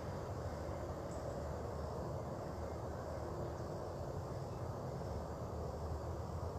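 Steady low outdoor rumble with a faint hiss above it, no distinct events.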